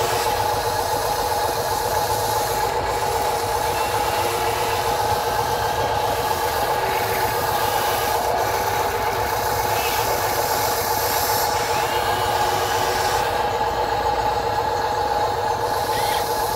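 Radio-controlled excavator running while it digs and swings its bucket: a steady mechanical hum with a constant whine and a low rumble.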